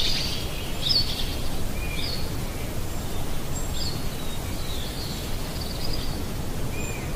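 Outdoor background noise, a steady low rumble, with a few faint short bird chirps scattered through it; no llama call.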